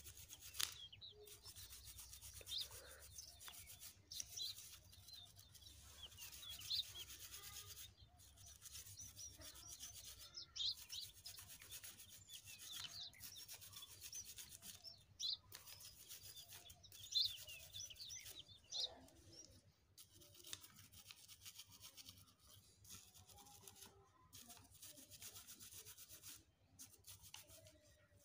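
A toothbrush scrubbing the rusty housing and armature end of a small DC sprayer motor. It makes a soft scratchy rubbing in repeated strokes with brief pauses. The brushing clears the rust that had got into the armature and jammed the motor.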